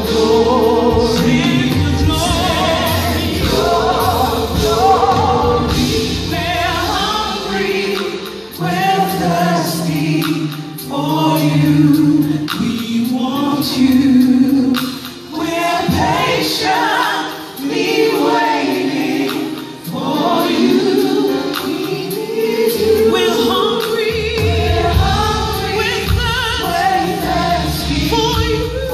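Live gospel choir singing a slow worship song with keyboard band accompaniment. The low bass drops away for a stretch in the middle and comes back in later.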